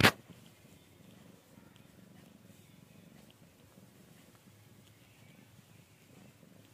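A domestic cat purring faintly and steadily, with a brief loud knock right at the start.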